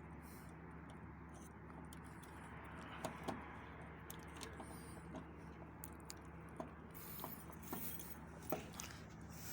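Scattered light clicks and taps of hand work on electrical wiring connections, over a steady low hum.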